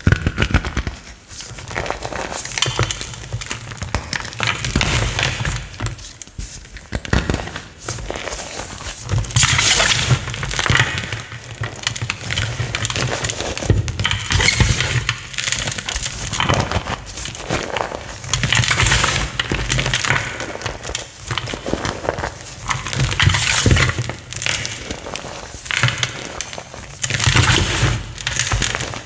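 Pieces of chalk being crushed and crumbled close to the microphone: dense crunching and crackling with low thuds, coming in waves every few seconds.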